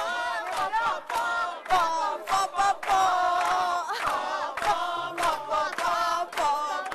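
Many voices singing together in chorus with sharp beats running through it: festive group singing to accompany dancing.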